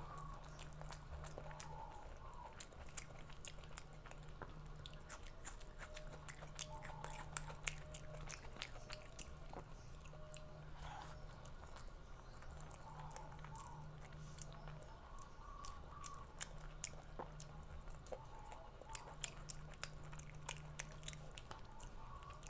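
Close-miked mouth sounds of a person chewing and biting food, with many sharp wet clicks and occasional crunches, over a faint low hum that comes and goes.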